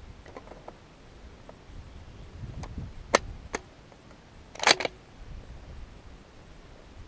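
Sharp metallic clicks and clacks of a Desert Tech SRS-A1 bullpup bolt-action rifle being loaded with a fresh type of ammunition: two single clicks about three seconds in, then a louder cluster of clacks about a second later.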